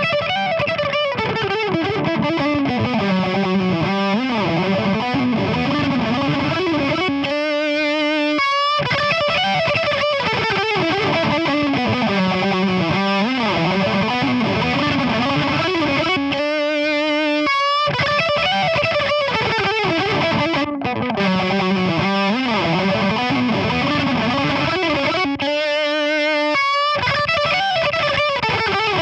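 High-gain distorted electric lead guitar through the Brainworx Diezel VH4 amp-sim plugin, playing a melodic phrase with bends and slides. The phrase comes round three times, each ending on a held note with wide vibrato.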